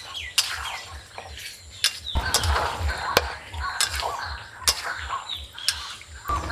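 Steel spatula clinking and scraping against an iron kadai as chicken and bottle-gourd pieces are stirred, with a few sharp clinks scattered through. Underneath runs a regular low thudding beat, about four a second, from distant loudspeaker music.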